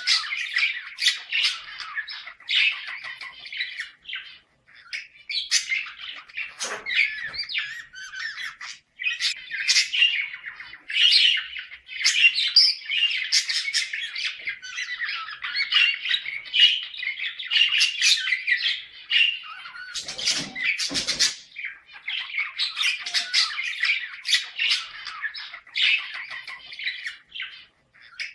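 Budgerigars chattering and warbling nonstop, with squawks and sharp chirps: the courtship chatter of a pair in breeding condition. A few brief low thuds come about 7 seconds in and again around 20 seconds.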